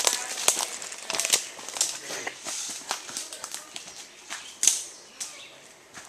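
Rustling and crunching of movement through brush, with irregular sharp clicks and snaps, the loudest about three-quarters of the way through.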